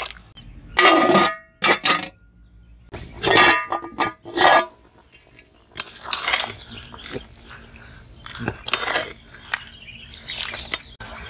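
Metal skimmer ladle clinking and scraping against a metal cooking pot while stirring prawn masala in water. Several sharp clinks with a brief metallic ring come in the first few seconds, then softer stirring noises.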